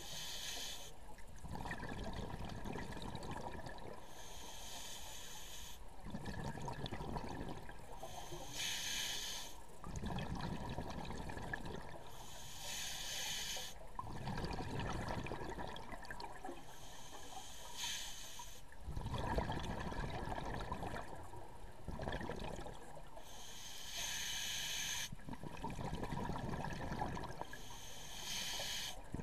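Diver breathing through a scuba regulator, heard underwater through the camera housing. Every four to six seconds a short hiss of inhalation alternates with a longer low gurgle of exhaled bubbles.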